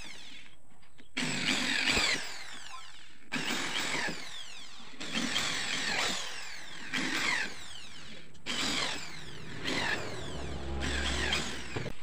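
Handheld electric drill boring holes through thin plywood sheet, in about six short bursts separated by brief pauses as it moves from hole to hole.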